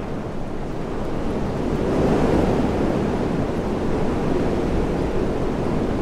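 Steady rushing noise with no distinct tones, heaviest in the low range, swelling slightly about two seconds in.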